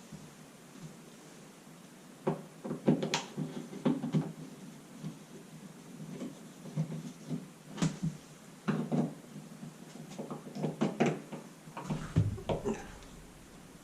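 Irregular clicks, knocks and scrapes of a stuck plastic light-switch wall plate being worked loose from the wall.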